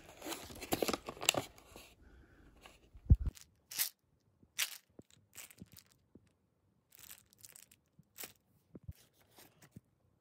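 Paper crinkling and rustling as a paper medicine bag is handled, with one dull thump about three seconds in. After that come scattered light handling clicks and rustles.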